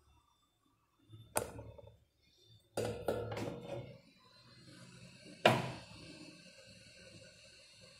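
Handheld repair tools knocking and clicking on a workbench: a sharp click, a short cluster of knocks, then a louder sharp click, after which a faint steady hiss with a thin high whine runs on.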